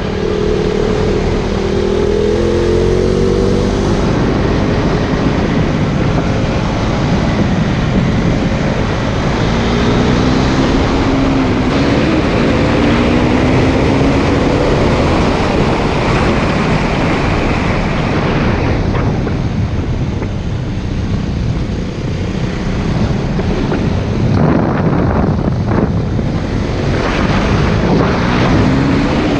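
KTM Duke 390 single-cylinder engine on its stock exhaust, heard from the bike while riding. The engine pitch climbs and drops again and again as the bike accelerates and changes gear, under heavy wind noise on the microphone.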